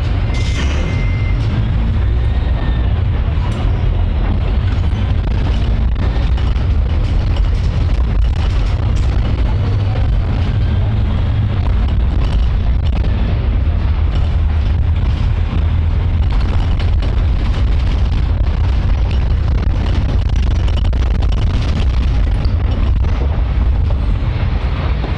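Steady, loud low rumble of a moving public transport vehicle heard from inside, with faint rattles and clicks over the top.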